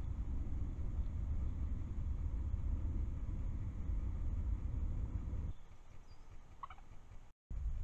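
Steady low rumble of distant expressway traffic and factory noise picked up by a trail camera's microphone. It breaks off at a cut after about five and a half seconds into a quieter background, where a single short warbling animal call is heard a second later.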